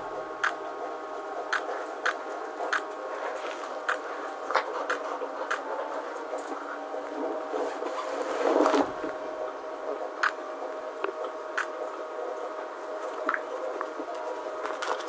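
A Belgian Malinois's claws clicking irregularly on a hard vinyl exam-room floor as the dog walks about, over a steady background hum. One louder, duller rustle comes a little past halfway.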